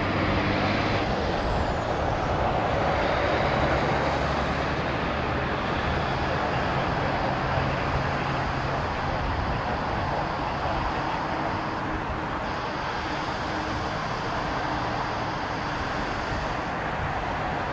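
Jet airliner on landing approach passing low overhead, its engines making a steady rushing roar with a faint hum beneath and a thin high whine.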